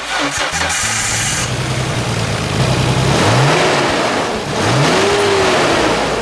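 Nissan Skyline GT-R (BNR32)'s Nismo S1-tune RB26 twin-turbo inline-six, breathing through a Nismo Weldina exhaust, starting up and settling into a steady idle. It is blipped twice, the revs rising and falling about three and five seconds in.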